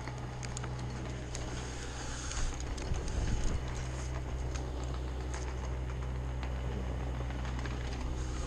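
Climbing gear knocking and clicking against a tree trunk as the climber moves around the spar, irregular sharp knocks over a steady low hum.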